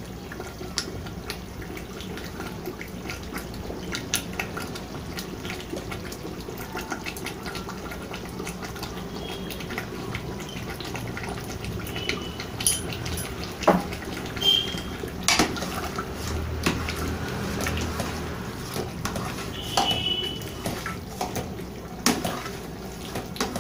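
Chicken korma gravy bubbling in a large aluminium pot, with a metal ladle clinking and scraping against the pot as it is stirred, a knock now and then.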